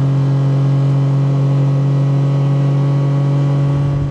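John Deere Gator utility vehicle's engine running at a steady speed while driving, a constant even hum that holds one pitch.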